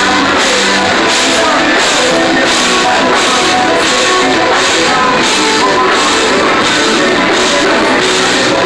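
Live rock band playing loudly: drum kit with cymbals keeping a steady beat, keyboard and guitar, with a singer's vocals.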